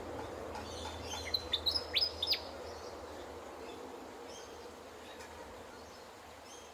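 Willie wagtail calling: a quick run of about six sharp, sweeping high notes about a second and a half in, with fainter chirps around it over a steady low background hum.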